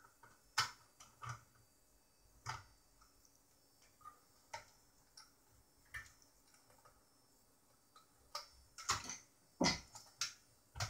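Scattered light clicks and taps of hand work inside an opened Yamaha LS9 mixer: small screws, a screwdriver and the fader circuit board knocking against the metal chassis. A run of louder knocks comes near the end as the fader board is lifted.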